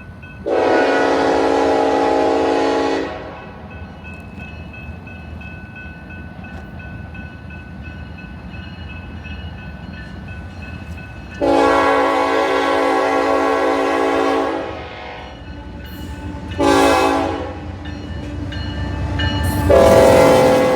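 Freight locomotive air horn sounding the grade-crossing signal: two long blasts, one short, then a long one still going at the end. Between the blasts a low rumble from the approaching train grows louder.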